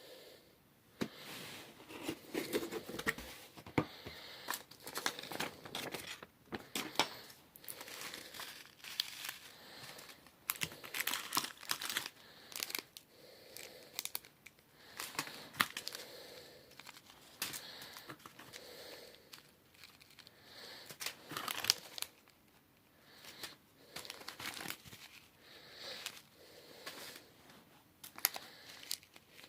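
Packaging of a slime kit being handled and opened: irregular crinkling and rustling with some tearing, in uneven bursts.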